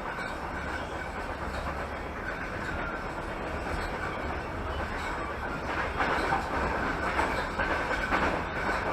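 Passenger train running along the line, heard from inside the carriage: a steady rumble of wheels on rails with a faint high tone over it. It grows louder for a couple of seconds about six seconds in.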